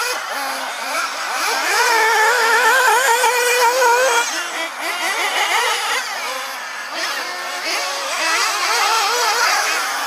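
Several radio-controlled off-road racing buggies' small nitro engines buzzing at high pitch, their notes overlapping and rising and falling constantly as the cars throttle up and brake around the track.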